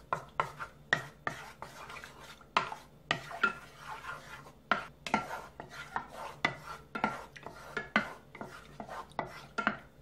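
Wooden spatula stirring flour into cold water in a small nonstick saucepan, with many quick, irregular knocks and scrapes against the pan as the flour is worked into a slurry before heating.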